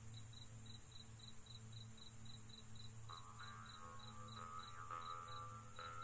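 Crickets chirping in an even rhythm of about four chirps a second over a faint steady high insect hiss. Soft melodic music comes in about halfway through.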